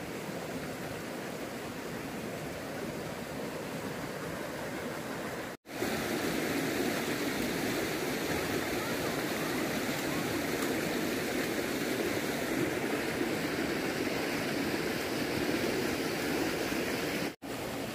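Steady rush of flowing water, cut off briefly twice; it runs louder after the first break, about five and a half seconds in.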